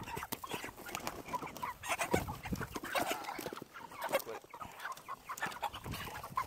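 Chickens clucking repeatedly, with short knocks and rustling from the birds and their crate.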